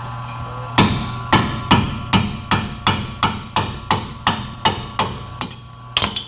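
Sledgehammer striking steel over and over, about fifteen blows at roughly three a second, knocking the stock torsion key off a 1999 Ford Ranger's front torsion bar. A brighter metallic ring comes near the end.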